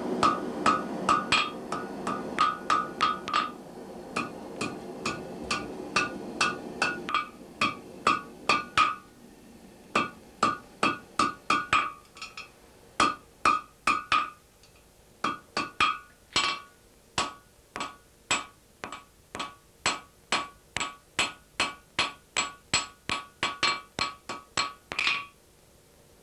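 Blacksmith's hammer striking red-hot iron on an anvil, in runs of quick blows about three a second with short pauses between the runs. Each blow rings bright from the anvil. A low rushing noise under the first several seconds fades out.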